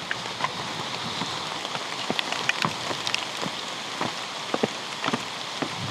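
Rain falling: a steady hiss with irregular drops tapping close by.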